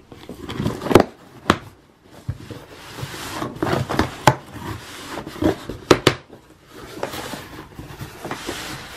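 Cardboard shipping box being opened by hand: the flaps are pulled apart with several sharp cardboard knocks, and there is rustling as a bagged load of dry cat food inside is handled.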